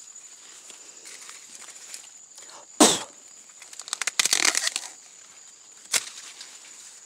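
Ears of sweet corn being snapped off the stalks, with dry husks and leaves crackling and rustling. There is one loud sharp snap about three seconds in, a spell of rustling a second later, and a shorter snap near the end.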